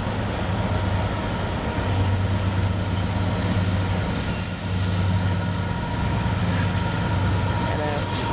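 Approaching four-unit Norfolk Southern diesel locomotive consist (AC44C6M, SD70IAC, C44-9W, GP38-2) running at about 39 mph. The engines make a steady low drone, and wheel and rail noise builds toward the end as the lead unit nears.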